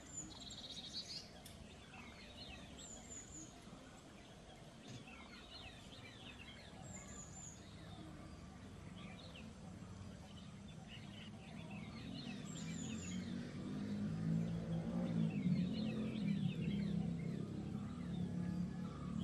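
Wild songbirds chirping, with a short high descending phrase repeated every few seconds and scattered quicker chirps, over a steady background hiss. From about twelve seconds in, a low rumble grows louder underneath.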